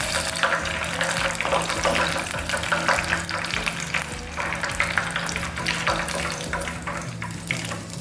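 Breaded chicken pieces deep-frying in hot vegetable oil: a steady crackling sizzle with many small pops.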